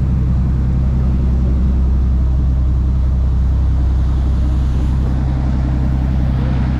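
Sportfishing boat's engine running steadily underway at cruising speed, a low constant hum, over the rush of the churning wake.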